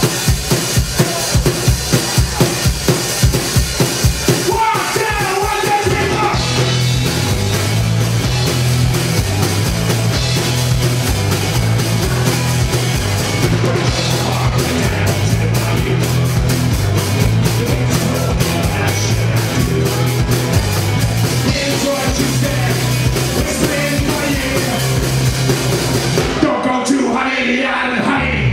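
Live rock 'n' roll band playing: drums, bass and electric and acoustic guitars. The drum beat leads for the first few seconds at about three hits a second, then a bass line comes in with the full band; near the end the bass drops out for a moment before the band comes back in.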